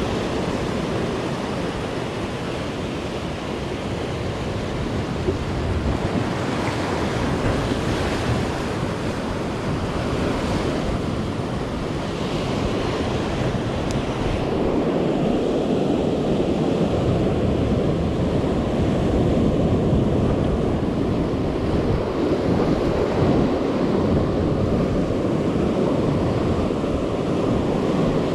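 Ocean surf breaking and washing over a rocky reef, a continuous roar that grows fuller about halfway through, with wind buffeting the microphone.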